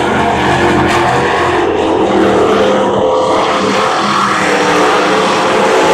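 Dirt-track Thunder Bomber stock cars' engines running at speed during a heat race. Several engine tones at different pitches overlap in a steady, loud drone that rises and falls slightly as the cars circle the oval.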